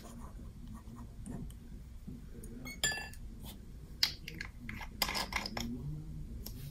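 Quiet tabletop handling sounds: a paintbrush is set into a glass of rinse water with a small ringing clink about three seconds in, then a glass ink bottle is handled on a cloth with short clicks and rustles.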